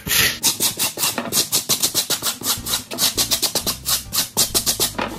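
Stiff stripping brush scrubbed back and forth over carved foam board, a quick run of rasping strokes, several a second, roughing up the foam surface.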